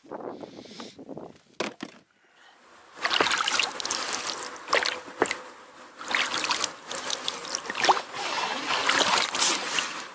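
Oars dipping and splashing as an inflatable boat is rowed across rippled water, a stroke about every second and a half, after a few light knocks at the start.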